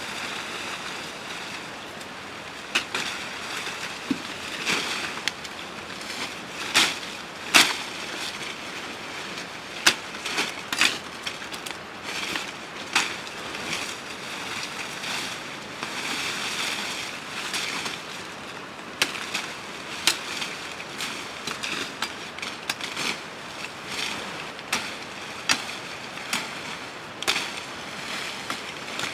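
Leafy tree branches rustling and swishing as they are pulled down and dragged, with sharp, irregular chops of a curved hand blade cutting into the wood. The loudest strikes fall about a third of the way in.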